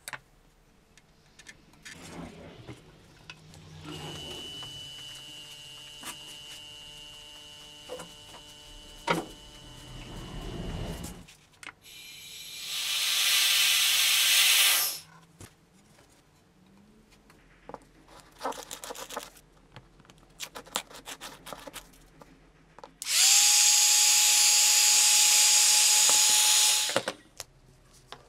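A handheld power tool running in two loud bursts of about three and four seconds. At the start of the second burst its pitch rises to a steady tone as it spins up. Earlier there is a quieter, steady high whine, and handling clicks fall between the bursts.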